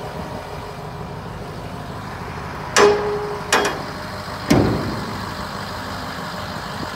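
Ford 6.0-litre Power Stroke V8 turbo diesel idling steadily, with three sharp metal clanks from the steel dump body about three, three and a half and four and a half seconds in; the first rings briefly and the last is the heaviest.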